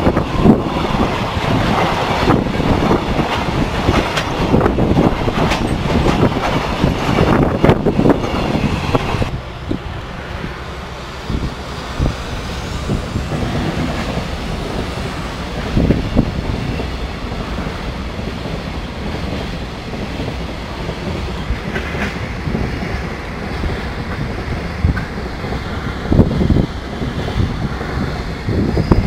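Freight train container wagons rolling past close by, wheels clattering and knocking over the rail joints. About nine seconds in it cuts off suddenly to a much quieter, steady rumble with a few low thumps.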